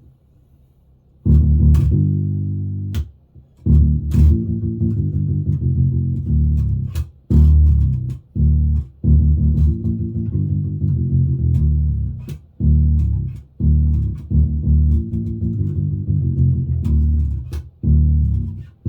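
Hammer Mini Bass 5-string electric bass played through a Warwick BC10 bass amp: after about a second of quiet, a run of plucked notes with short breaks between phrases and clicks of string attack.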